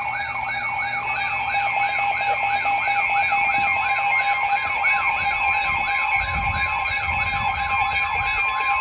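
Electronic alert siren of a weather alert radio sounding for an incoming warning: a warbling tone rising in quick sweeps about three times a second over steady higher tones. A steady single tone joins it near the end.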